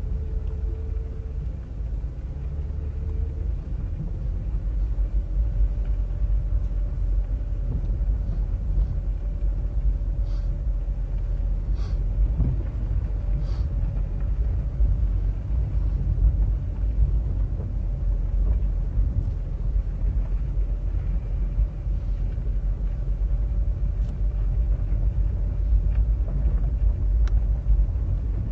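Road noise inside a vehicle driving on a dirt canyon track: a steady low rumble of engine and tyres on gravel, with a faint steady whine. A few light ticks or rattles come about ten to fourteen seconds in.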